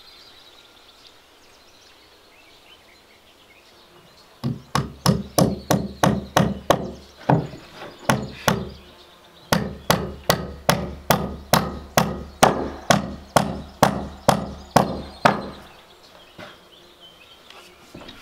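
A hammer striking wood in quick, even blows, about three to four a second. The blows start about four seconds in and come in two long runs with a short pause between them.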